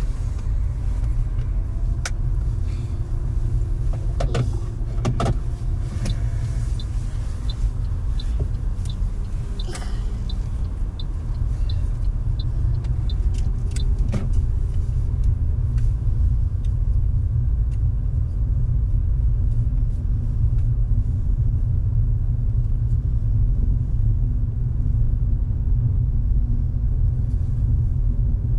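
Low, steady rumble of road and engine noise inside a moving car's cabin. A few sharp clicks and knocks come in the first half, and the rumble grows slightly louder about halfway through as the car speeds up on the open road.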